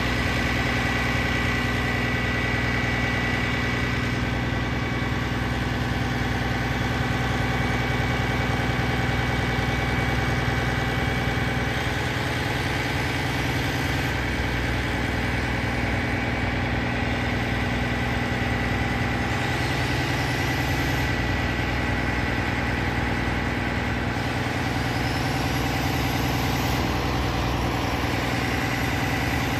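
Detroit Diesel Series 60 engine of a 2001 American LaFrance Eagle tower ladder truck running steadily, with a steady high whine over it, while the aerial boom is being raised. The engine note shifts slightly a few times.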